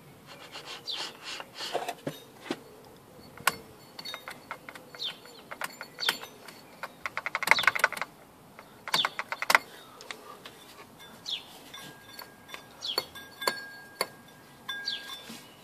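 Irregular clicks and taps from accessory pulleys being handled and turned by hand with the serpentine belt off, with a quick run of clicks about seven to eight seconds in. Birds chirp briefly now and then in the background.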